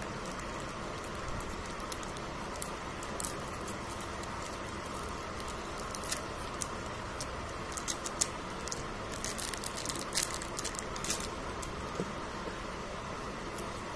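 Foil Pokémon booster pack wrapper being torn open by hand: scattered sharp crinkles and crackles, busiest in the middle stretch, over a steady background hiss.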